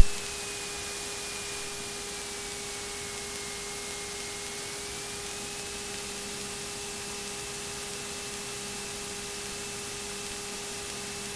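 Steady hiss of an aircraft intercom audio feed, with a faint steady hum and a thin high whine that dips slightly in pitch midway and then rises back.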